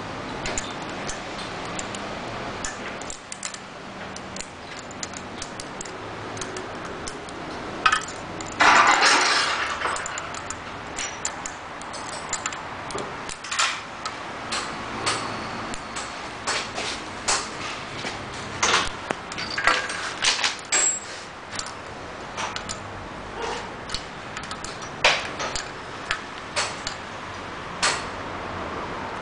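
Metal hand tools and small metal parts clinking, clicking and tapping while the carburetor's mounting nuts are fastened, with a louder rustling scrape about nine seconds in.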